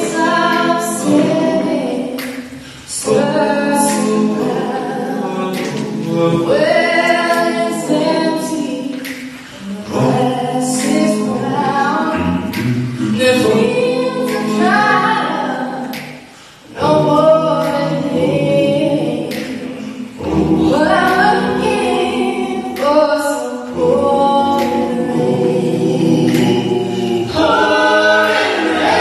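Mixed vocal quartet, one woman and three men, singing a gospel song a cappella in harmony through handheld microphones, in phrases with short breaks between them.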